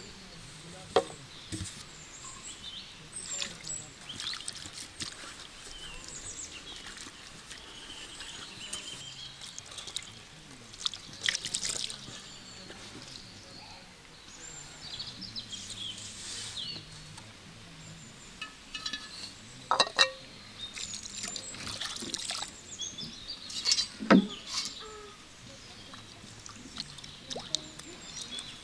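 Food-preparation sounds: scattered knocks and clinks of utensils, the loudest two about two-thirds of the way in and another shortly after, with birds chirping in the background.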